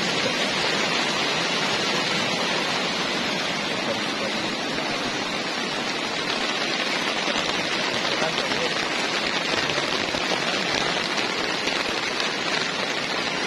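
Heavy storm rain falling steadily: an even, unbroken hiss with no pauses.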